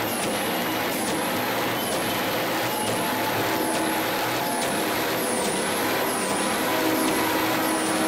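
Semi-truck diesel engine held at high revs during a burnout, its drive tyres spinning on the pavement in a steady loud din, with a high whistle that falls and climbs back about once a second.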